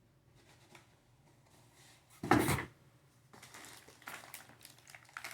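Handling noise from plastic toy parts and packaging: one loud short clatter a little over two seconds in, then soft rustling and light clicks.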